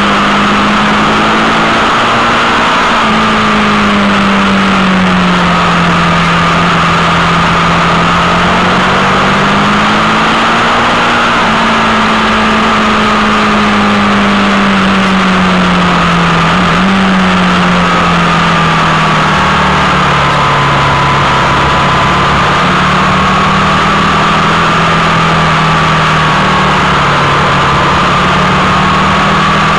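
Sport motorcycle engine at road speed, heard from a camera mounted on the bike. Its note rises and falls slowly over a steady rush of wind.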